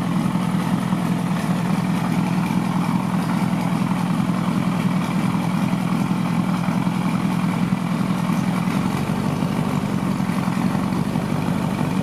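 Rocketford race car's engine idling steadily with a hoarse note, its pitch unchanging throughout.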